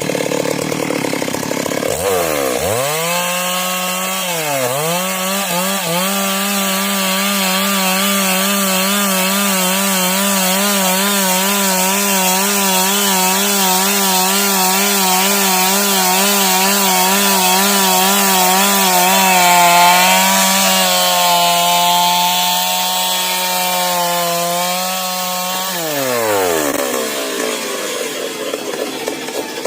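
Two-stroke chainsaw revving to full throttle about two seconds in, dipping once, then holding high revs with a slight wobble as it rip-cuts a log lengthwise along the grain. Near the end the throttle is released and the engine winds down.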